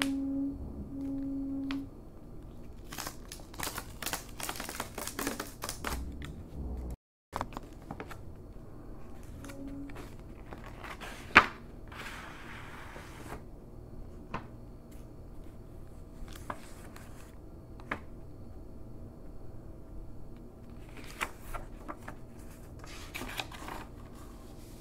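Paper rustling and tearing as a sealed paper mailer envelope is ripped open along its tear strip and the paper leaflets inside are pulled out and handled. A dense run of crinkling and tearing about three to six seconds in, a single sharp snap just past eleven seconds, and further bursts of rustling near the end.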